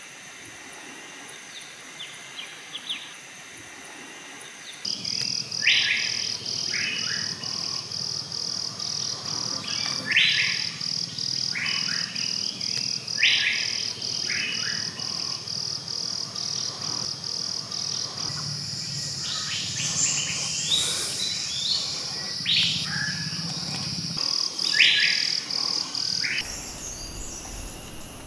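Forest ambience of wild birds calling with short, sharp, repeated notes over a high, evenly pulsing chirp that starts about five seconds in. The background changes abruptly near the end.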